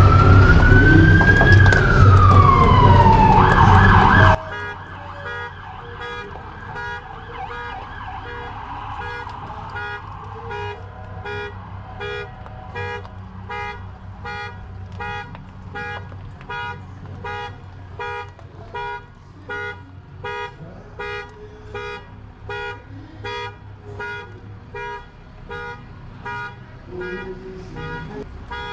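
An emergency vehicle siren wails loudly, its pitch sweeping up and back down, over a low vehicle hum. After about four seconds it cuts off abruptly and gives way to a much quieter, steady electronic beeping, about two beeps a second.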